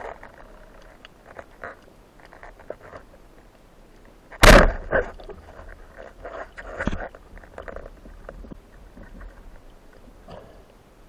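A band-powered speargun fired underwater about four and a half seconds in: one sharp, loud crack, followed by smaller knocks and clicks of the shaft and line as the speared fish struggles. Faint scattered underwater clicks come before the shot.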